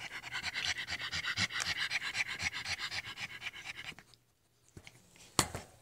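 Pug panting rapidly in quick, even breaths that stop about four seconds in. One sharp click comes near the end.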